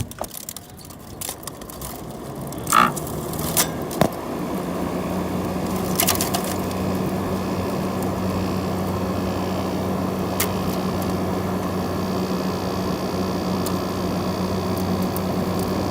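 Frigidaire window air conditioner starting up: the fan spins up over the first few seconds with a few sharp clicks, then the compressor comes on about four and a half seconds in and runs with a steady hum under the fan.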